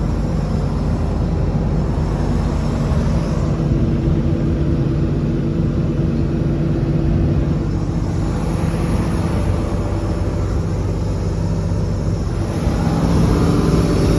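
Caterpillar 320D excavator's 6.4-litre diesel engine running steadily, a little louder near the end.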